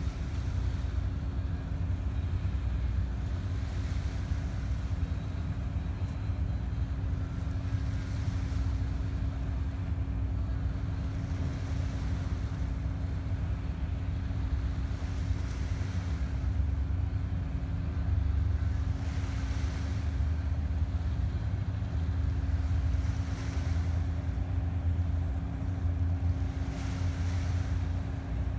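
Distant tugboat's diesel engine droning steadily across the water, with a constant low hum. Wind rumbles on the microphone, and small waves lap at the shore every few seconds.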